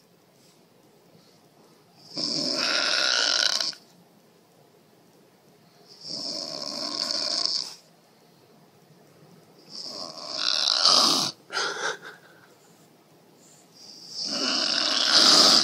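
A woman snoring in her sleep: four long snores about four seconds apart, each lasting over a second, the third followed by two short snorts.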